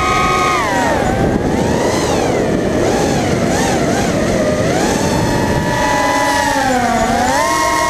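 FPV racing drone's brushless motors and propellers whining, the pitch swinging with the throttle: it drops about half a second in, wavers, climbs again around the middle, then dips and rises near the end. Heavy wind rush runs under it.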